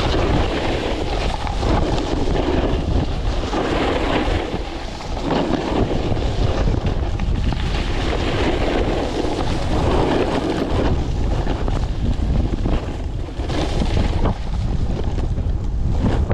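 Strong wind buffeting the microphone in a blizzard during a snowboard run: a loud, steady rushing noise that swells and eases every second or two.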